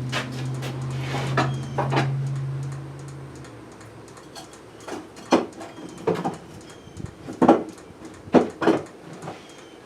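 A steady low hum that cuts off about three and a half seconds in, with scattered knocks and clunks of things being handled, louder and more frequent in the second half.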